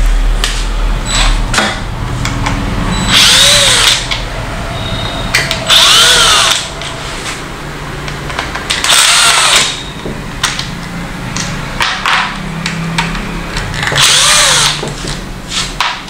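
Cordless drill-driver backing screws out of a plastic control-panel housing in four short runs, each motor whine rising and falling in pitch. Light clicks and handling noises come between the runs.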